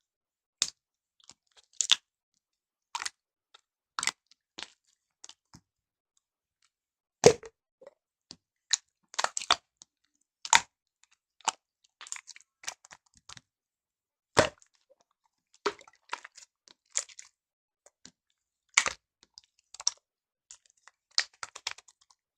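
Slime being pressed and squeezed by hand, making sharp, irregular popping and crackling clicks with short silences between them. A few of the pops are louder than the rest.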